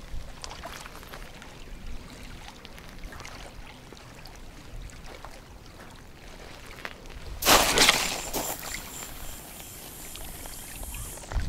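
Small waves lapping against a gravel shore, with a loud rush of noise about seven and a half seconds in that fades away over a few seconds.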